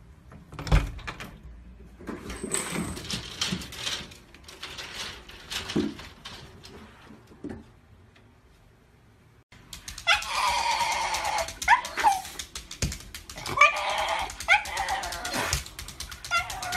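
A few sharp knocks and rattles. Then, about ten seconds in, a Shiba Inu starts vocalising: a run of wavering, whining cries with short breaks between them.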